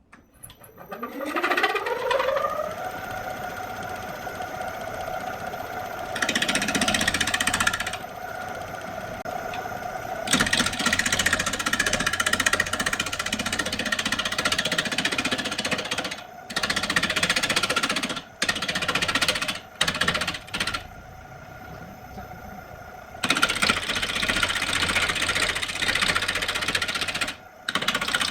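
Wood lathe motor spinning up with a rising whine over the first two seconds, then running at steady speed. A turning tool cutting into the spinning wooden blank adds loud, rough, chattering noise in several stretches, stopping and starting as the tool is pressed in and lifted off.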